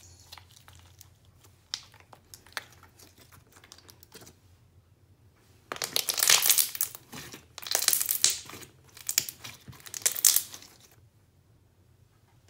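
Thick, creamy slime squeezed and pressed between two hands, crackling and popping as air pockets burst. Faint scattered crackles at first, then four loud bursts of crackling in the second half.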